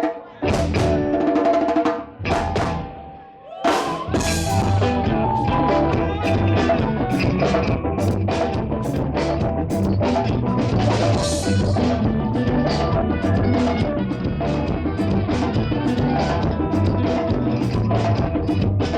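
Live band playing, with drum kit and guitar: a sparse break of separate hits and pauses, then the full band comes back in with a steady beat about four seconds in.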